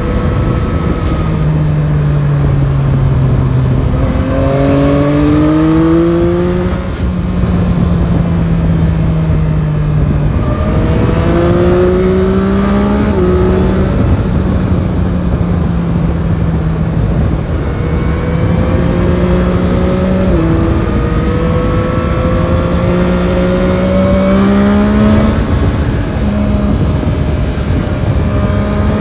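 Yamaha Tracer 9 GT's 890 cc CP3 inline three-cylinder engine under way, its note climbing as it pulls and dropping at several gear changes, over steady wind rush.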